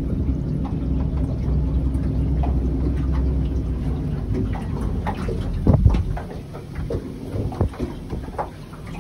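Motorboat engine idling low, dying away about six seconds in, followed by scattered knocks and clicks.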